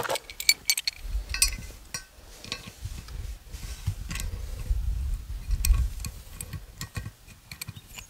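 Scattered small clicks and clinks of metal parts and a valve stem tool being handled against a steel wheel rim while a tire valve stem is replaced, with a low rumble in between.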